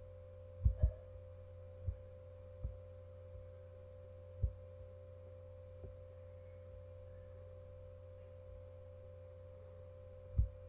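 A steady electrical hum with a faint steady higher tone over it, broken by soft, dull low thumps: a quick pair about a second in, single ones every second or two after that, and one more near the end.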